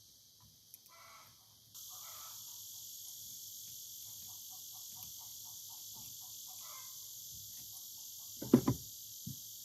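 Chickens clucking, including a quick run of about four clucks a second, over a steady high hiss that starts about two seconds in. Near the end there is a sharp, loud clunk, followed by a lighter knock.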